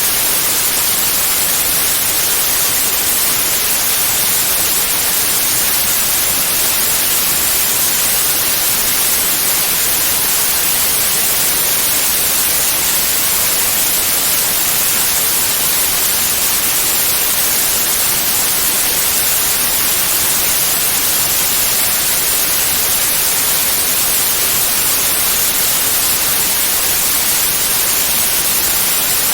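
Steady white noise: an even, unbroken hiss, strongest in the treble, that does not change.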